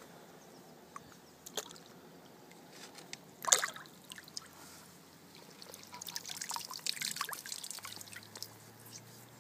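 Lake water splashing as a carp is released from a landing net: one sharp splash about three and a half seconds in as the fish swims off, then a few seconds of trickling and dripping water.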